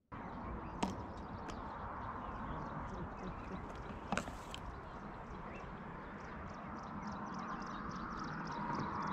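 Lakeshore ambience: a steady hiss and rumble under a fast run of short high animal calls, about five a second, growing busier toward the end. Three sharp clicks come in the first half, the loudest about four seconds in.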